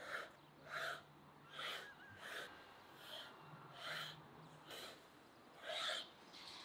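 Kitchen knife cutting through a thin rolled sheet of dough onto a wooden board: a run of short scraping strokes, roughly one a second.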